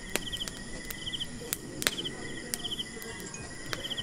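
Crickets chirping in short repeated trills, with sharp pops and cracks from a wood fire crackling several times.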